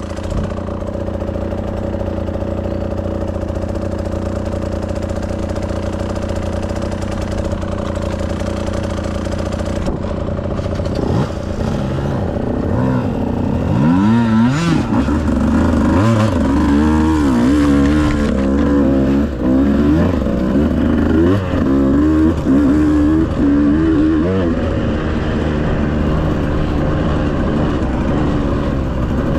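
An off-road vehicle's engine running steadily, then, from about eleven seconds in, revved up and down again and again for around a quarter of a minute before settling back to a steady run.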